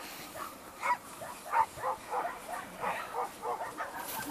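An animal's short calls repeated in an irregular string, two to four a second, with one brief sharp click near the end.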